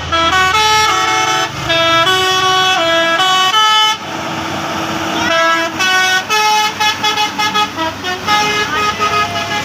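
Basuri telolet musical horn playing a fast melody of held notes, several pitches sounding together and stepping from chord to chord. About four seconds in the tune breaks into a rushing noise, then starts again with shorter, choppier notes.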